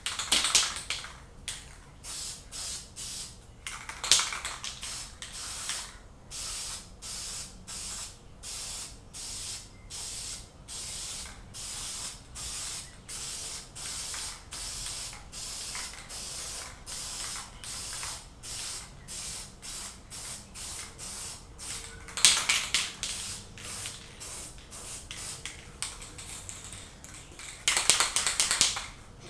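Aerosol can of Krylon camouflage khaki spray paint hissing in short repeated squirts, about one and a half a second. A few longer, louder sprays come at the start, about four seconds in, about twenty-two seconds in and near the end.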